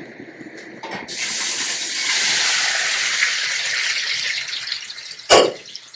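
Boiled potatoes sizzling as they go into a pan of hot cooking oil: a loud hiss that starts suddenly about a second in and slowly dies down. A sharp knock near the end.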